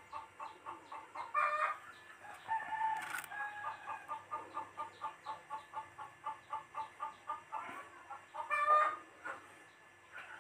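Chickens clucking: a steady run of short clucks, about four or five a second, with a few louder, longer calls mixed in.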